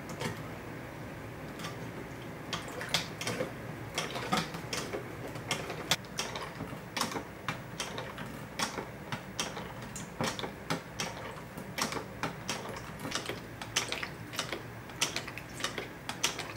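Plastic LEGO Technic parts of a hand pump clicking and knocking as the pump is handled and its lever worked: many sharp, irregular clicks, sparse at first and coming thicker toward the end, over a steady low hiss.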